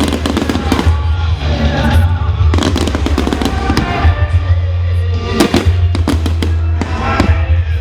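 Fireworks crackling and banging in quick succession over loud music with a heavy, steady bass.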